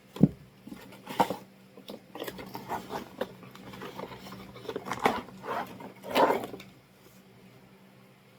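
Hands handling unboxing packaging: a sharp knock just after the start, then a run of rustles and clicks that stops about two-thirds of the way in.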